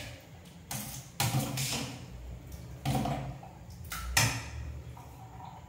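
Metal ladle stirring thick curd vermicelli in a stainless steel pot: a few short, wet scraping strokes against the pot, then a sharp metal clink about four seconds in.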